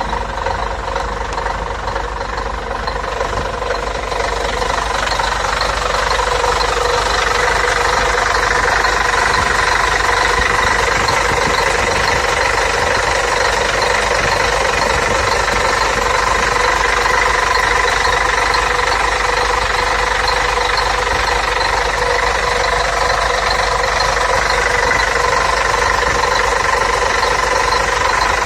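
Scania K113TL bus's 11-litre inline-six diesel engine running, growing louder about four to six seconds in and then holding at a steady, higher speed.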